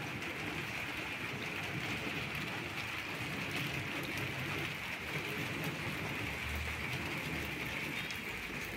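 Rain falling steadily: an even hiss with a low rumble beneath it.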